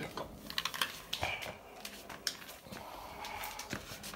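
Scattered sharp clicks and scuffs from a bulldog tugging on a rope toy on a wooden floor, most of them in the first two seconds.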